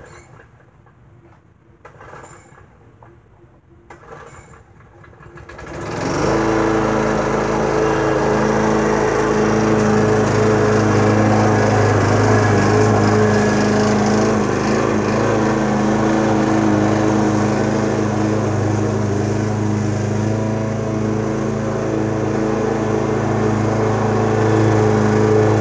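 A gasoline walk-behind lawn mower engine starts about six seconds in and then runs steadily at a constant speed while mowing. A few brief sounds come before it starts.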